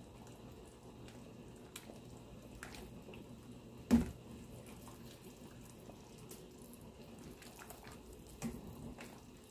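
Metal ladle stirring simmering soup in a stainless steel pot: liquid sloshing with faint clinks over a low steady hum. A sharp knock about four seconds in and a smaller one near the end as the ladle strikes the pot.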